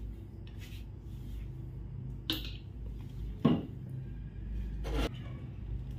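Plastic squeeze bottle of chocolate syrup being handled: three short clicks and knocks, the loudest about halfway through, over a steady low hum.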